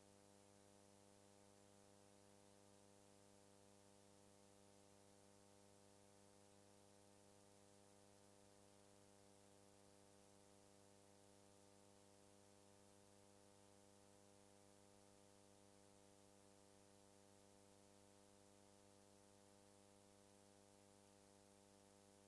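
Near silence: only a faint, steady hum and hiss.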